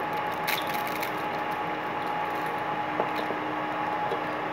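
A dry instant wheat-noodle block crackling and snapping as it is pressed by hand into a pan, with sharp crackles about half a second in and again around three seconds in. A steady hum and hiss runs underneath.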